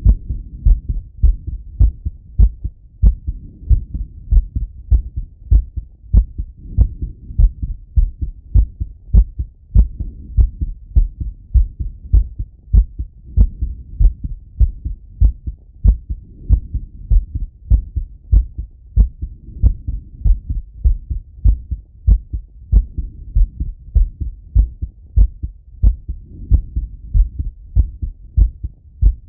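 A man's heartbeat heard through a Littmann stethoscope chestpiece, beating fast and regularly as it recovers after a set of exercise. Between the low, evenly spaced thumps a soft rushing swells and fades every few seconds.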